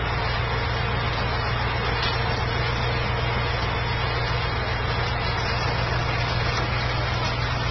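An engine running steadily at constant speed, a low hum under an even hiss.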